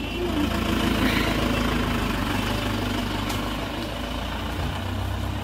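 Engine of a Tata utility vehicle running slowly close by as it passes on the street: a steady low hum.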